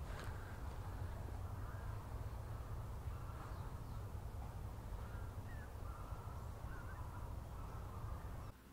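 Boosted outdoor ambience from a Tascam Portacapture X6's built-in microphones: a steady low rumble and hiss with faint bird calls now and then. Just before the end it cuts to a much quieter room.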